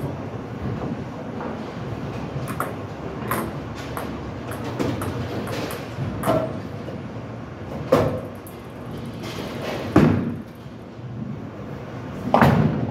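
Bowling alley lane sounds: a steady low rumble of balls rolling and lane machinery, broken by sharp crashes and clacks of pins and balls, the loudest about eight and ten seconds in. Near the end a heavy thud comes as a bowling ball is released onto the lane.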